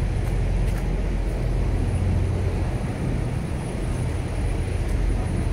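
Heavy truck engine running with a steady low rumble.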